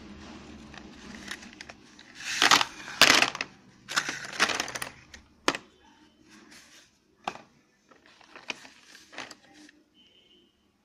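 Slate pencils spilling out of a cardboard box and clattering onto a plastic tray: a few loud rattling bursts a couple of seconds in, then scattered single clicks as the sticks settle and are handled.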